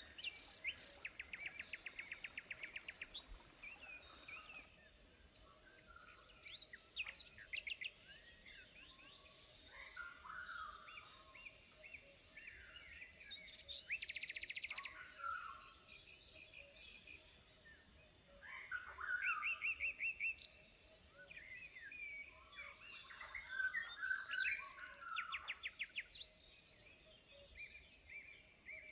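Several songbirds calling and singing over one another: short whistled notes and chirps that rise and fall, with several fast trills, one a little after the start and others about halfway through and near the end.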